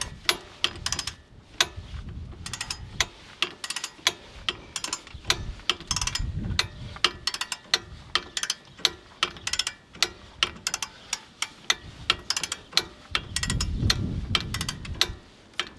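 Ratchet wrench clicking in quick runs as it turns the screw of a C-clamp ball joint press, driving the upper ball joint the last bit into the steering knuckle until it seats. A few low rumbles swell under the clicks.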